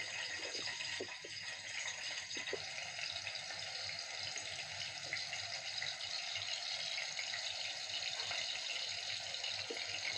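Raw-mince kebab patties sizzling steadily in hot oil in a pan, with a few small pops and crackles of spattering oil.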